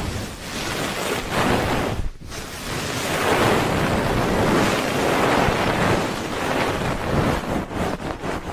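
Hands rubbing rapidly over a binaural microphone's ears in the ASMR 'helicopter' ear-rubbing trigger: a loud, rough whooshing that swells and eases, with a short break about two seconds in.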